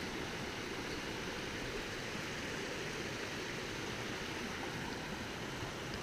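Steady rush of whitewater from a creek swollen by heavy rain, an even, unbroken noise.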